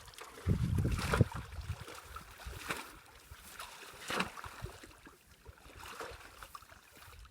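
Water sloshing and splashing in irregular bursts, with a loud low rumble about half a second in.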